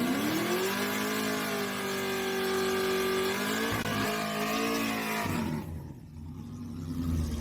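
Car engine revving up, holding high revs for a few seconds, then dropping back to a low rumble.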